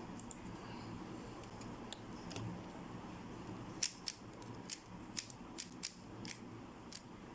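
A plastic 3x3 speedcube being turned by hand during a scramble: short, sharp clicks as the layers snap round, a few early on and more frequent in the second half.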